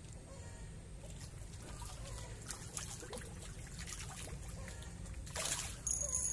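Pond water splashing and trickling as a hooked fish thrashes at the surface while being reeled in, with light splashes throughout and a louder splash near the end.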